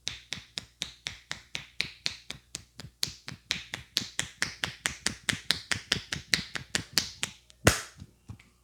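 Rapid, even hand strikes of a barber's percussive head massage, about five or six slaps a second, stopping with one louder slap near the end.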